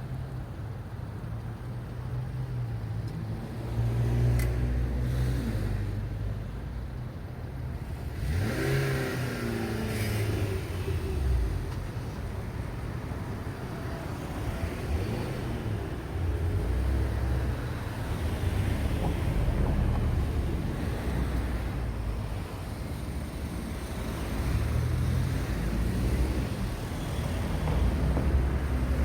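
Road traffic: cars passing in waves with a low rumble. About eight seconds in, one vehicle accelerates away, its engine note rising.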